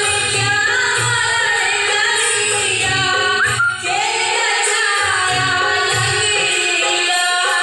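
A woman singing a Hindi folk song over a backing track with a steady drum beat.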